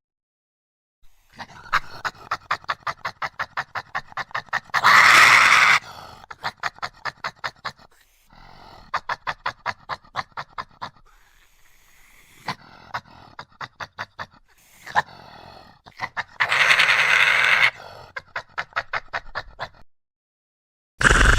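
Archaeopteryx creature sound effect: runs of rapid, panting-like chattering pulses, about four to five a second, broken by three loud harsh shrieks about a second long, the last at the very end.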